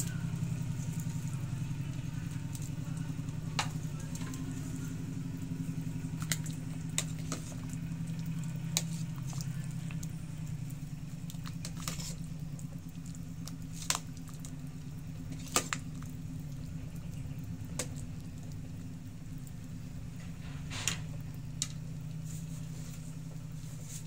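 Sharp clicks and taps of a metal ladle against a stainless steel soup pot as the soup is stirred, scattered irregularly, over a steady low hum.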